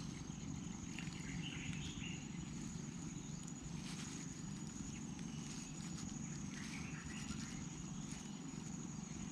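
Rural riverside ambience: a steady high-pitched insect drone that breaks off briefly several times, a few short bird chirps about two seconds in and again near seven seconds, over a steady low background noise.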